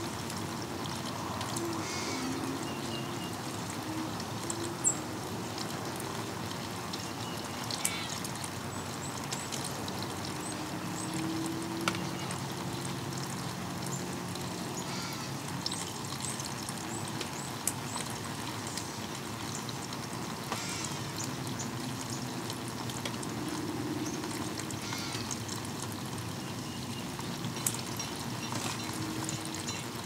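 Steady rain falling and trickling, with about seven sharp ticks spread through it, and a few faint, brief chirps from small birds.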